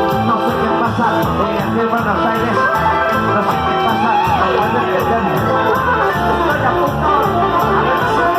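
Loud Latin American music with guitar and singing over a steady beat.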